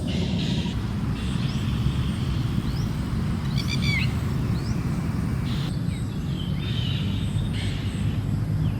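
Birds chirping with short scattered calls, and a brief rapid stuttering call about three and a half seconds in. They sit over a steady low rumble that is louder than the birds.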